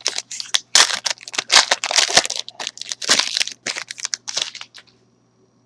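Wrapper of a trading-card pack being torn open and crinkled in the hands, a quick run of crackles that stops shortly before the end.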